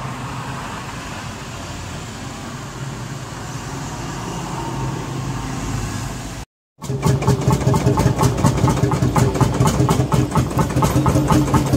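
A green John Deere tractor's diesel engine running as it drives past along the street. After a brief cut, a vintage tractor's engine runs close by, louder, with a fast, even pulsing beat.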